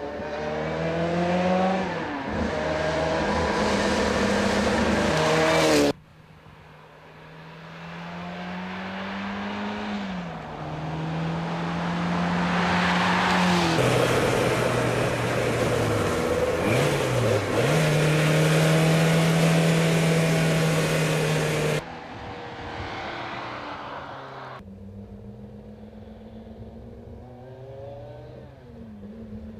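Lancia Rally 037's supercharged four-cylinder engine under hard acceleration, its pitch rising and then dropping back again and again as it changes gear. The sound cuts off abruptly and restarts at a different level a few times.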